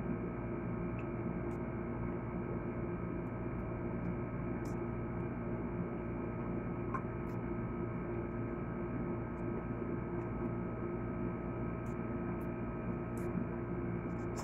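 A steady hum made of several held tones, with a few faint short clicks scattered through it.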